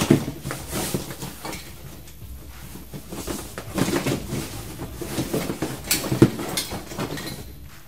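Items being rummaged through and handled close by: irregular rustling with scattered clicks and knocks, the sharpest knock about six seconds in.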